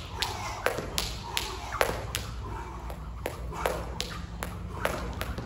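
Jump rope slapping the floor on each turn, a sharp slap about two and a half times a second in a steady rhythm.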